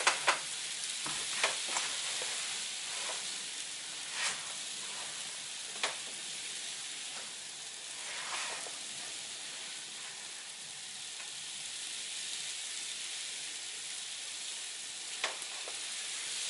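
Steady hiss of freezing rain and snow falling, with a few light knocks and clicks scattered through it as the shooter handles the rifle and settles into position.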